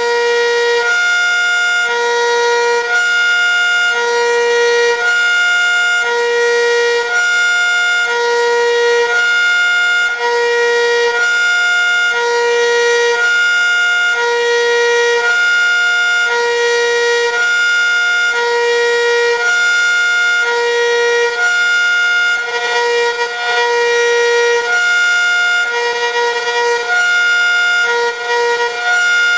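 ACA Superbanshee outdoor warning siren sounding a hi-lo signal, its dampers worked by hand so the pitch switches between a low and a high tone about once a second. Late on, the switching turns choppy and fluttering, the siren's own vibration kicking back the damper control buttons.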